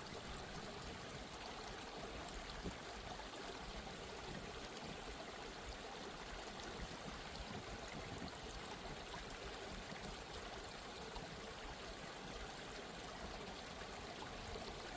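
Steady, soft flowing water, like a gently running stream.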